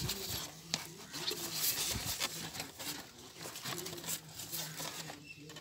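Hands handling a red fabric-and-plastic case with a black strap: soft rustling and scratching with many small clicks.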